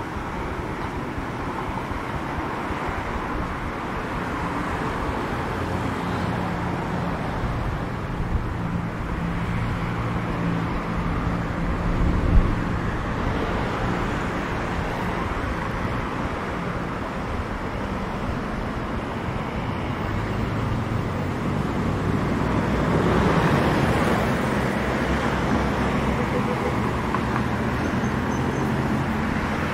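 Street traffic: vehicle engines running with a steady low hum and tyre noise. One vehicle passes close about three-quarters of the way through, and there is a brief thump near the middle.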